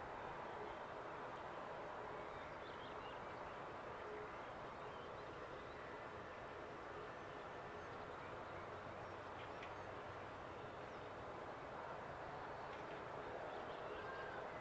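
Faint outdoor ambience: a steady hiss with a few faint, distant bird calls.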